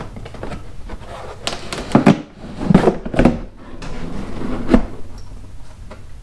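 A carpeted trunk liner being pushed into the tight space of a Harley-Davidson Tour-Pak trunk: rubbing and scraping with several sharp knocks against the trunk's shell, the loudest about two, three and nearly five seconds in.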